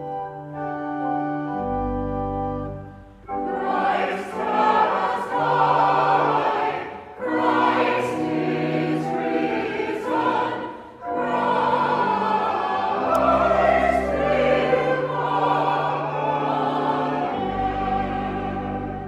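Organ playing a short held-chord introduction, then a choir singing the memorial acclamation of the communion prayer with organ, in three phrases with short breaks between them.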